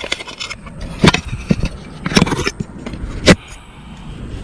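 Handling noise while a caught bass is being unhooked for release: rough scraping with sharp knocks about a second apart, the loudest a little past three seconds in.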